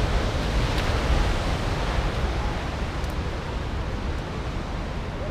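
Steady rushing noise of surf breaking on a rocky shore, mixed with wind buffeting the microphone as a low rumble.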